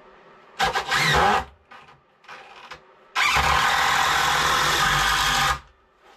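Cordless drill running in bursts: a short spin-up rising in pitch, two brief blips, then a steady run of about two and a half seconds that stops abruptly, as when driving screws into wood.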